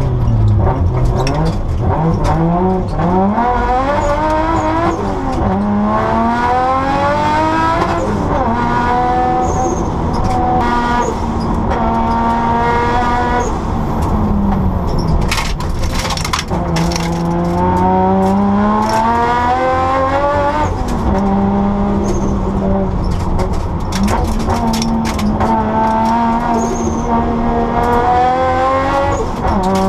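Rally car's engine heard from inside the cabin, revving hard up through the gears with quick upshifts. It drops off for corners and pulls again, several times over.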